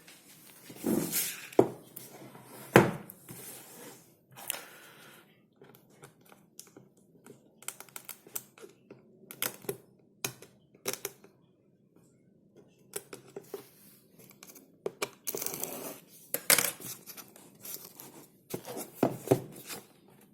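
Packaging being handled and opened during an unboxing: irregular small clicks and knocks with stretches of rustling and tearing, loudest in the first few seconds and again about three-quarters of the way through.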